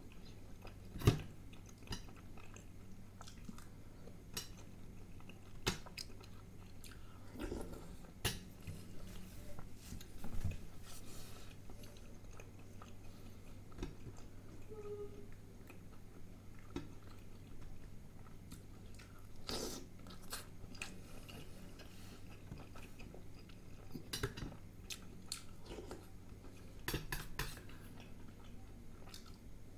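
Close-miked eating: chewing and biting, with a steel spoon clinking now and then against stainless steel thali bowls in sharp single clinks, the loudest about a second in.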